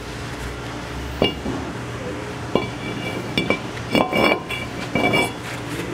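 A new brake rotor being handled and slid onto the wheel hub: five or six sharp metal clinks and knocks, several of them ringing briefly.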